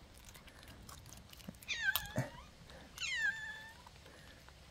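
A cat meowing twice, two short calls about a second apart, each falling in pitch.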